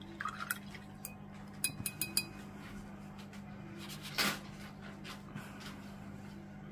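A paintbrush clinking against a glass water jar several times in quick succession, each clink ringing briefly. About four seconds in comes a short, louder rustling swish.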